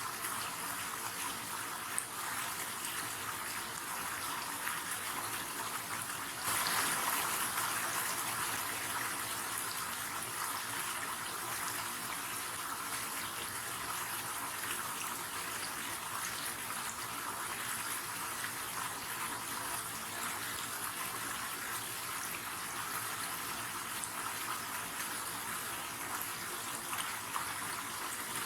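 River water running steadily over a streambed, with a brief swell in level about a quarter of the way in.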